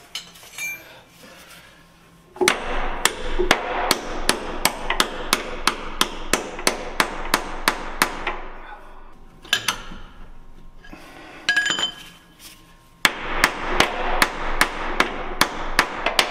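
Hand hammer striking a bolt in the steel mounting bracket of a plow truck's wing frame, ringing metal-on-metal blows at about three a second. Two runs of strikes start about two seconds in and again about three seconds before the end, with a pause and a few lighter clinks between them.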